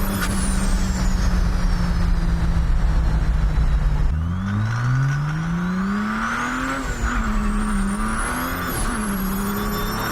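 Mercedes OM606 straight-six turbodiesel on a turbo set to 43 psi boost. The engine note holds steady for the first few seconds while the turbo's high whistle falls away. About four seconds in, the engine note drops, then climbs steadily for about three seconds as the turbo whistle rises with it, before wavering up and down.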